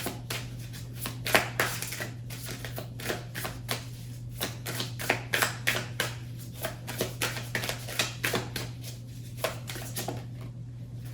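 Oracle card deck being shuffled by hand: a continuous, irregular run of soft card snaps and slaps, over a steady low hum.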